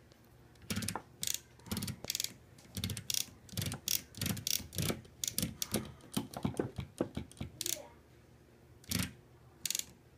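1971 Hermes typewriter mechanism clicking and ratcheting in a quick, uneven series of clacks for about seven seconds, then two more clicks near the end, as its levers and keys are worked. The carriage is stuck and does not move on the carriage return lever or backspace.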